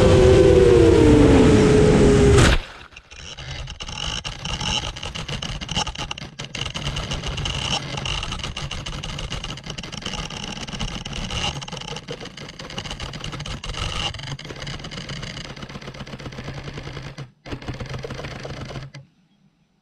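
Seven-inch FPV drone's motors and propellers whining loudly, the pitch falling, then cutting off abruptly about two and a half seconds in as the drone goes down into the grass. After that a fainter, rough rustling noise with a faint steady high tone carries on until the recording stops just before the end.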